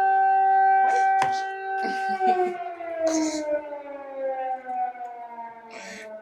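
Air raid siren holding a steady tone, then winding down in a slow falling glide from about two seconds in. A few short clicks, knocks and rustles sound over it.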